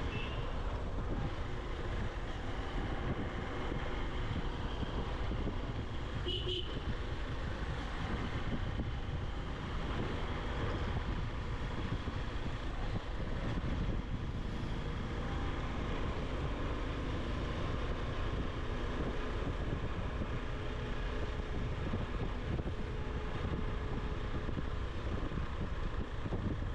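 Motorcycle engine running steadily while riding, with wind and road noise on the rider's camera microphone. A brief high chirp sounds about six and a half seconds in.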